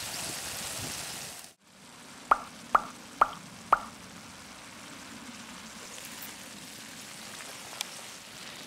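Tomato sauce bubbling and sizzling in a stainless skillet over a wood fire, cut off about a second and a half in. Then come four identical short pitched plop sound effects about half a second apart, and a softer steady sizzle.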